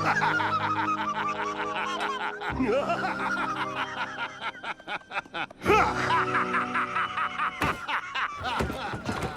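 A person laughing in long runs of rapid short bursts over background music.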